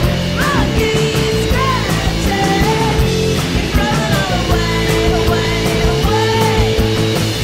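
Rock song with electric guitars and a steady beat.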